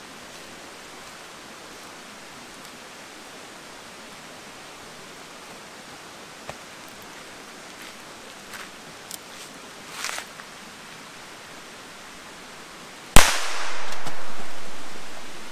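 A single sharp, very loud bang as an old, sealed beer can is burst open, followed by about two seconds of hissing spray that fades away.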